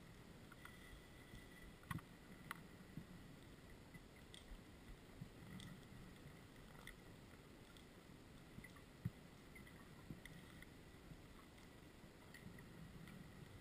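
Near silence underwater: a faint low rumble and a faint steady whine, with scattered small clicks, the sharpest at about two seconds and again at about nine seconds.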